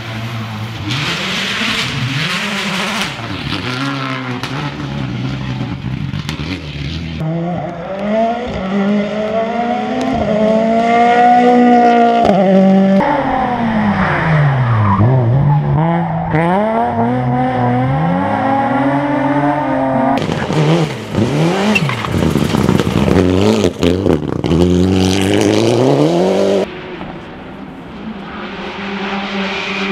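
Rally car engines running hard on a special stage, pitch rising sharply under acceleration and falling on lifts and downshifts, as cars pass. The sound cuts abruptly between cars several times.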